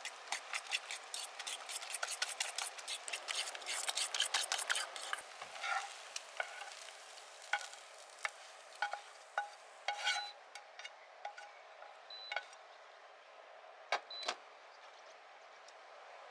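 Food sizzling in olive oil in a frying pan while a kitchen utensil stirs and knocks against the pan or bowl: rapid clicking for about the first five seconds, then only occasional taps over the steady sizzle.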